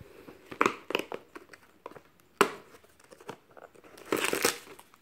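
Hands working a cardboard advent-calendar door and pulling out a plastic-wrapped herbal tea sachet: scattered light taps and clicks, one sharp click about two and a half seconds in, and a burst of crinkling near the end.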